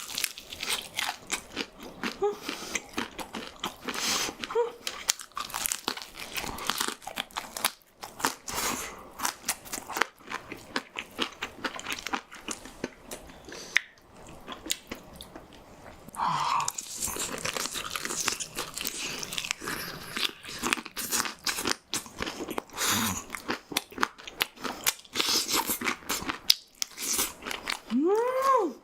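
Close-miked crunchy bites and chewing of fried chicken with crisp batter, irregular crackles throughout. Near the end, a short pitched vocal sound rises and falls.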